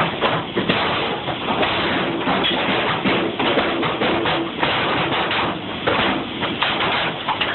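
Background music with a run of sharp, irregular knocks and taps over it.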